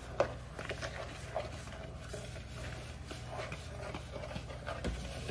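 A fork stirring a dry shredded-coconut mixture in a mixing bowl: irregular light scraping and tapping, over a low steady hum.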